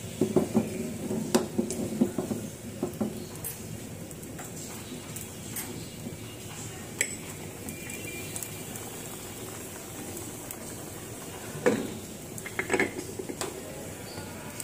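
Metal cookware clattering and clinking on a gas stove in two spells, one in the first three seconds and one near the end, with a single sharp click about seven seconds in. Under it runs a steady hiss from the burner and the pan of eggs at a rolling boil.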